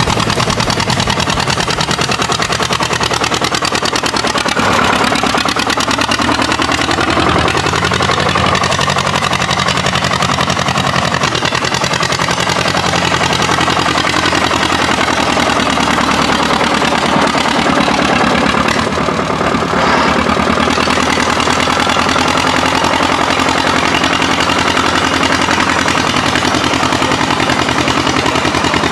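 Tractor engine running close by, its pitch rising and falling a few times early on as it revs, then running steadily.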